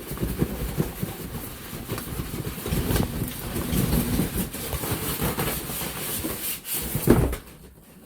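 Large cardboard boxes scraping and rubbing together as an inner box is pulled out of a big shipping carton: a continuous rumbling scrape with small clicks, and one louder knock about seven seconds in.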